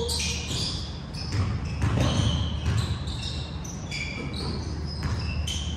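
Basketball game on a gym court: a ball bouncing and players' sneakers giving short high squeaks on the floor, echoing in the large gym.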